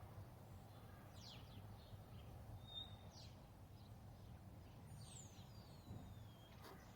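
Near silence with faint bird calls in the background: a few short chirps, then one long falling whistle about five seconds in, over a low steady hum.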